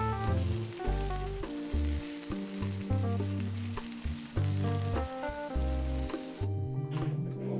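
Potato slices sizzling in hot vegetable oil in a nonstick frying pan as a spatula turns them, over background music with a bass line. The sizzling cuts off about a second before the end.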